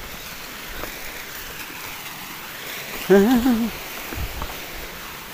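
Steady rush of flowing water, like a hillside stream. A person's voice sounds briefly a little after three seconds in.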